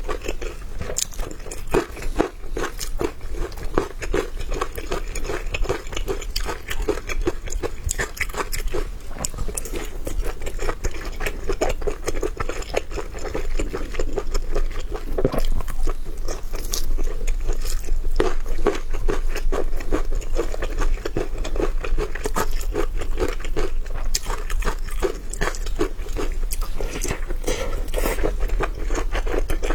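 Close-miked eating sounds: a person biting and chewing crunchy food, with dense irregular crackling crunches throughout.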